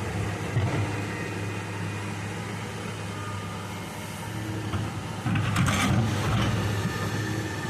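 Excavator's diesel engine running steadily under work. About five seconds in it gets louder for a second or so, with a brief rushing, scraping noise.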